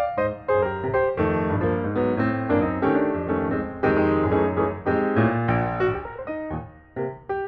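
Background piano music, a steady run of notes that thins out briefly near the end.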